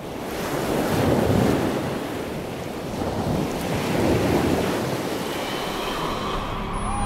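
Sea water rushing and surging like waves, swelling about a second in and again about four seconds in.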